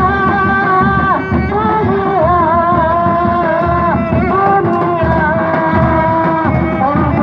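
Traditional music: a melody of long held notes with ornamented bends, over a busy, steady drum pattern.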